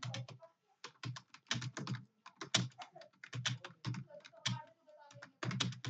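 Fast typing on a computer keyboard: rapid runs of keystrokes with short pauses about half a second in and near the end, as a Hindi passage is typed for a speed test.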